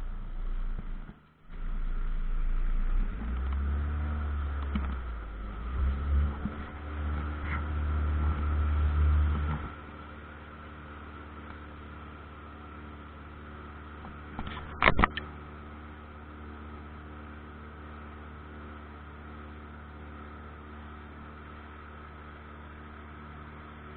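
Pontoon boat's outboard motor running: a loud, uneven low rumble for about the first ten seconds, then a steadier, quieter hum. A brief clatter comes about fifteen seconds in.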